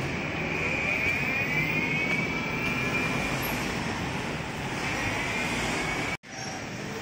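Motor vehicle noise in a busy street: a steady hum with a high whine that rises over the first few seconds, fades, and returns later. The sound cuts out for an instant about six seconds in.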